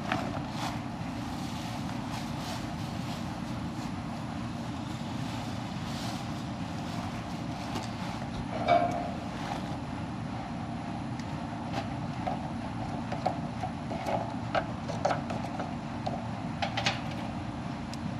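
Steady low rumbling background noise with scattered light clicks and knocks of hands and tools working on the unit, one louder knock about nine seconds in.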